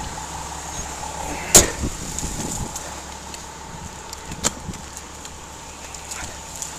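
One sharp, loud bang about a second and a half in, followed by a lighter knock near four and a half seconds, over a steady background hum.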